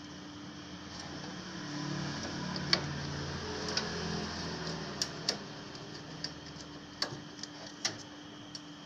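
A few sharp, irregular clicks and light knocks of hands handling computer parts and connectors, over a steady low hum.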